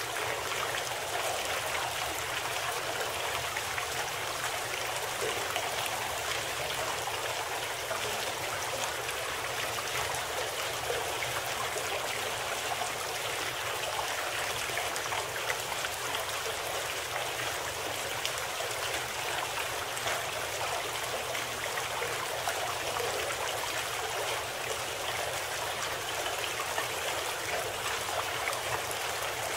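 Steady rushing water of a flowing stream.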